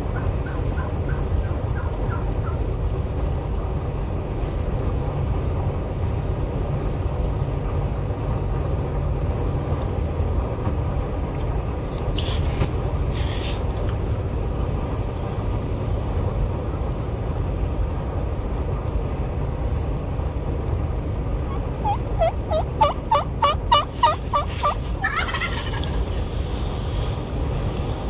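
Merriam's wild turkey gobbling: one loud, rapid rattling gobble near the end, over a steady low rumble of wind.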